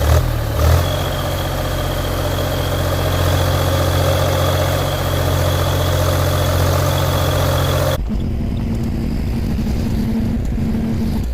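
JLG 400S boom lift's engine running steadily with a constant high whine over it, with two thumps in the first second. About eight seconds in it cuts off suddenly to a different, quieter steady hum.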